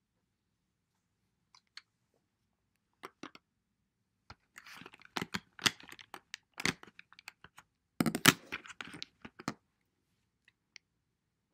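Handling noise close to the microphone: a few sharp clicks, then crackly rustling and clicking from about four and a half to nine and a half seconds in, loudest about eight seconds in.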